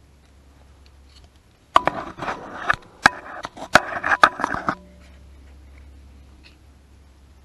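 Clattering and scraping of hand tools being rummaged in a plastic tub, with several sharp clicks, for about three seconds starting about two seconds in.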